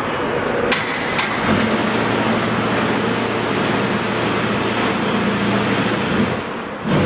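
Concrete block production machinery running: a steady mechanical drone with a low hum, and two sharp clicks about a second in.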